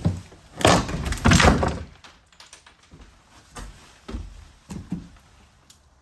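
Tongue-and-groove wooden ceiling boards being pried down, with a loud crash of breaking, falling wood and debris lasting about a second, followed by several lighter thunks.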